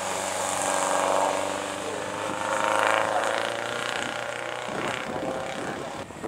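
1930 Lea-Francis Hyper replica racing car's engine accelerating hard past and away up a hill climb, its pitch rising twice with a dip in between like a gear change. The engine note fades out near the end.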